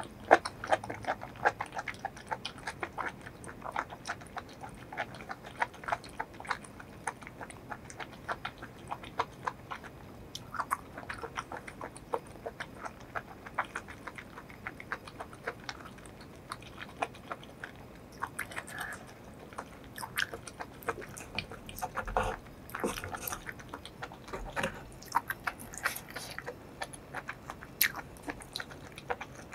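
Close-miked chewing and biting of food coated in spicy sauce: many small mouth clicks throughout, busier and louder in the last third.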